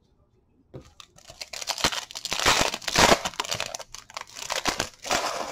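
Foil wrapper of a baseball card pack crinkling and tearing as it is pulled open by hand, starting about a second in and loudest around the middle.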